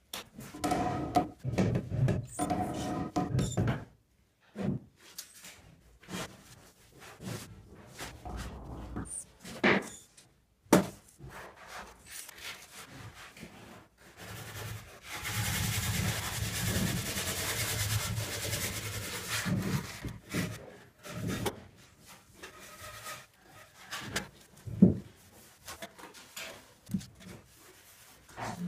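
Aerated concrete blocks being laid by hand: rough scraping and rubbing of block and tool against block and mortar, with a few sharp knocks. Near the middle comes a longer stretch of steady scraping lasting several seconds.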